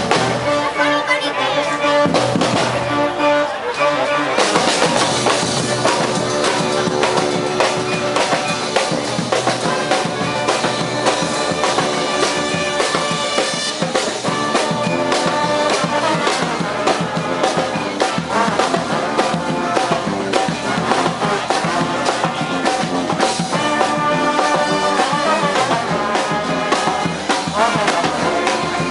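Street brass band playing, horns over a steady drum beat, growing louder and fuller about four seconds in.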